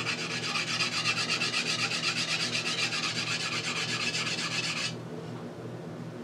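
Usuba knife blade rubbed back and forth on a convex-surfaced whetstone, steel grinding on stone in rapid, even strokes that stop about five seconds in.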